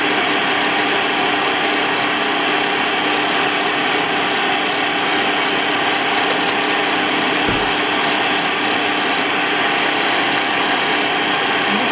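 Electric stand mixer running steadily at speed, whisking egg whites.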